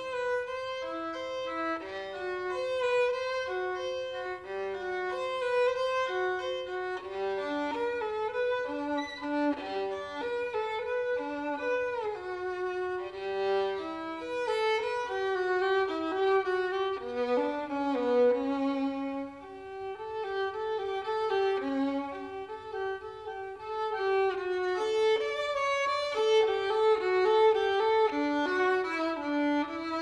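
A violin bowed in a quick, lively melody of short running notes, now and then two strings sounding together.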